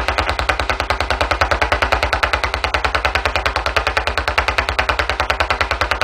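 Rapid, evenly spaced clicking pulses, about ten a second: a wireless modem's radio emissions picked up by a crystal diode 'Spirit Radio' and played back as electrical signal, the 'woodpecker' sound that starts once the modem connects and begins broadcasting wirelessly.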